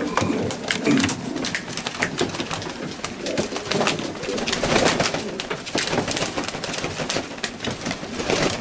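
Maltese pigeons cooing, with many sharp clicks and taps scattered among the coos.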